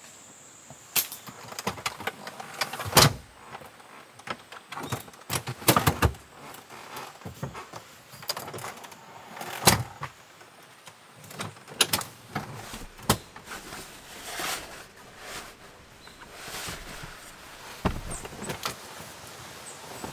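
Irregular clacks, clicks and knocks of a folding camp table being handled and set up, its metal legs and wooden slats knocking together, with the sharpest knocks about three seconds in and near the middle.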